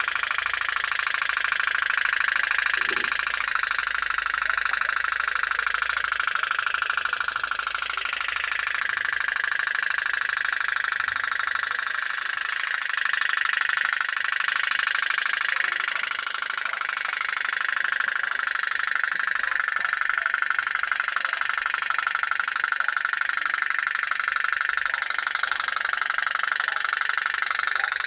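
Pop-pop boat's little steam engine putting steadily, a rapid, even stream of pops.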